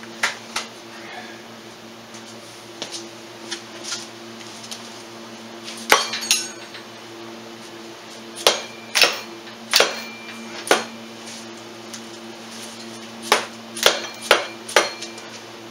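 Sharp metallic knocks and clinks, about fifteen, scattered irregularly and some in quick pairs: a hammer tapping on a Polaris Sportsman 500 transmission case to bring it into line with its bolt holes.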